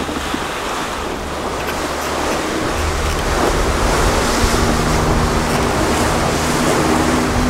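Wind and sea rushing past a sailboat under way, with wind buffeting the microphone. A steady low hum joins in about three seconds in.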